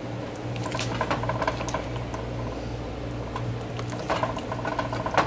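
A long kitchen knife slicing through raw pastry crust in a metal baking pan, with light scrapes and clicks from the blade about a second in and again around four seconds in. A steady low hum sits underneath.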